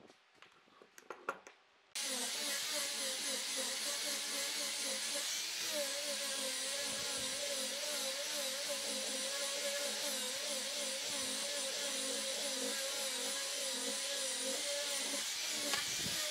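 Corded angle grinder with a sanding disc running as it sands a clamped wooden block, a steady whine whose pitch wavers slightly. It starts abruptly about two seconds in, after a few light knocks.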